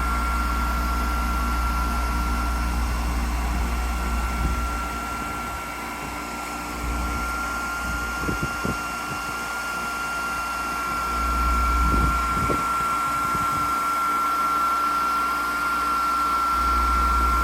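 Steady whine of a hand-held electric blower with rushing air, used to melt ice off the frosted coil of a window air conditioner running as a heat pump without a defrost cycle. A deep airflow rumble swells and fades several times.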